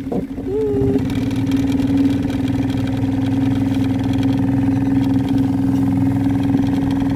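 Small Yamaha outboard motor running steadily, pushing a small boat along. Its steady drone fills out and grows a little louder about a second in.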